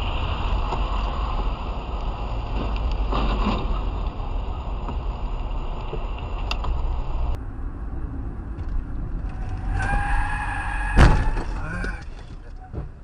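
Car driving on a wet highway, heard from inside: steady road and tyre noise with a low engine rumble. After a cut, a car horn sounds for about a second and a half, and a single loud bang comes about eleven seconds in.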